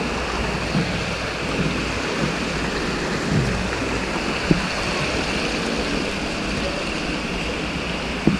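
Water of a shallow spring-fed stream rushing steadily over rocks in a small cascade, with a couple of brief knocks.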